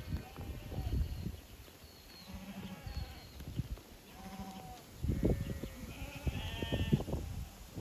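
A mob of lambs bleating, several short overlapping calls from different animals, over the shuffle and knock of many hooves on the ground. The calling and trampling grow louder about five seconds in.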